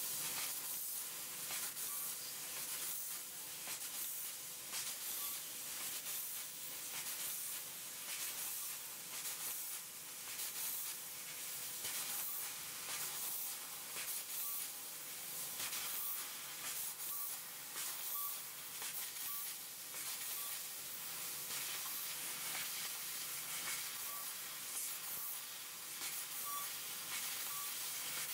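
12 kW fiber laser cutting 8 mm stainless steel plate: a steady hiss of assist gas blowing through the copper nozzle, crackling with many quick pops as the beam cuts through. A faint steady tone runs underneath.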